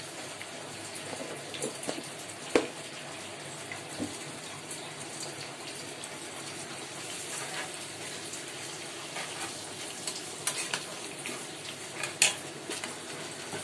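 Onions and ginger-garlic paste sizzling in hot oil in a pan, with a few sharp knocks of a spatula against the pan.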